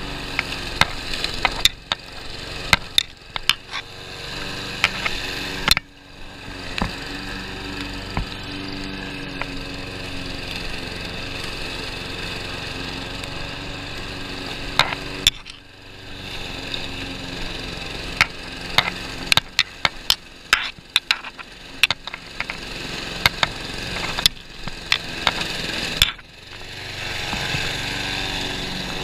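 Petrol lawn mower engine running steadily while mowing, with many sharp cracks and knocks, as of sticks and debris being struck, and brief dips in level about six, fifteen and twenty-six seconds in.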